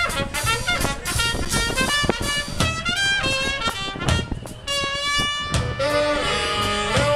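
Live swing band playing a brassy instrumental passage: saxophone and trumpet lines over drum kit and upright bass.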